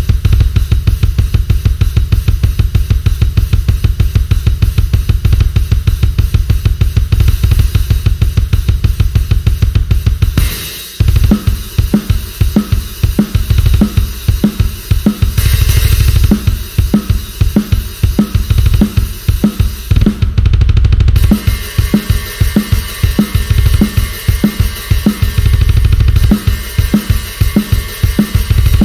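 Sampled acoustic drum kit from Ingram Audio's Drum Daddy Kontakt library playing loud drum patterns with kick, snare and cymbals. For about the first ten seconds the hits come very fast and dense, then after a brief break a steadier beat with evenly spaced hits takes over.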